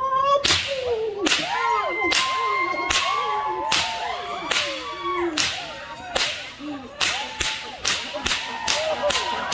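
A bullwhip cracking back and forth, about one sharp crack a second at first, then doubling to quick double-time cracks about seven seconds in.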